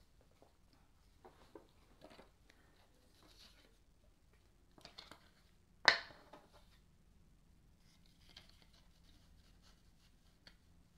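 Trading cards and a clear plastic piece being handled on a tabletop: faint rustles and light taps, with one sharp click about six seconds in.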